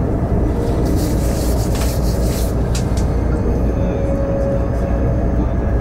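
Steady low rumble of a high-speed train heard from inside the carriage, with a few short rushing swishes between about one and two and a half seconds in.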